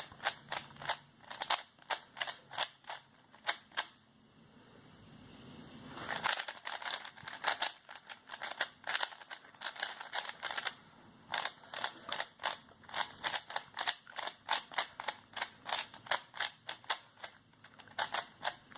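Transparent YJ YuLong 3x3 speed cube being turned fast: rapid runs of sharp plastic clicks as the layers snap round, with a short pause about four seconds in. The cube is new and very tight.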